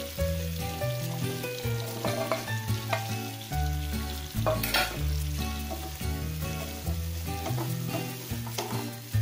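Chili sambal sizzling in hot oil in a frying pan as unpeeled petai (stink beans) are tipped in and stirred with a wooden spatula, with a sudden louder burst about halfway through. Soft background music with a steady bass line runs underneath.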